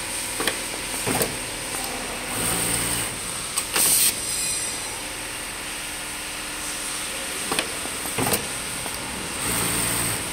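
Automatic dart sewing machine working through its loading cycle: a steady machine hum with several sharp clicks, a short loud hiss of air about four seconds in, and two brief stretches of motor drone as the mechanism moves.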